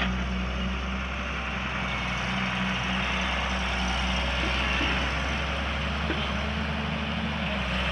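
Heavy-machinery diesel engine running steadily, with a few faint clicks.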